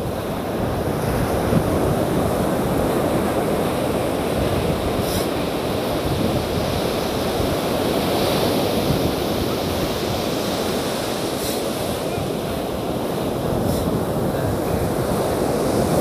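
Ocean surf washing and breaking on a sandy beach, a steady rushing wash of waves, with wind buffeting the microphone.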